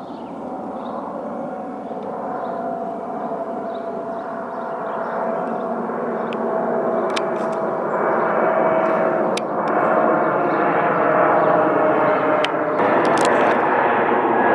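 Jet airliner on approach, its engines whining with a steady tone over a rushing noise that grows louder as it comes closer. A few sharp clicks sound in the second half.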